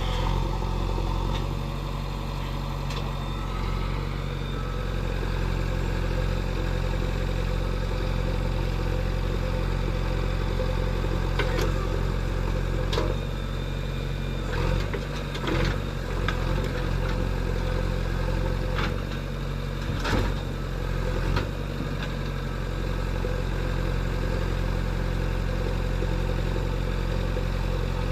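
JCB 3DX backhoe loader's diesel engine running steadily while it works, with a scatter of sharp knocks and clanks in the middle stretch.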